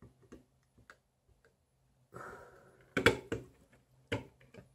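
Light clicks and a brief scrape as an LED floodlight's diffuser panel is prised out of its housing with tweezers. The sharpest clicks come about three and four seconds in.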